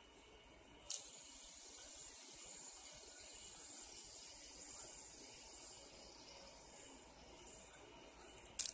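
Fidget spinner flicked into a spin about a second in, its ball bearing whirring with a steady high hiss that fades away after about five seconds. A sharp click near the end.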